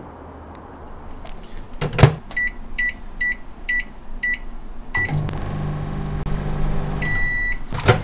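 LG microwave oven being set and run: a loud clack of the door shutting, five quick high beeps from the buttons being pressed and a sixth as it starts, then the steady hum of the oven running. One longer beep as it finishes, followed by the clack of the door latch opening.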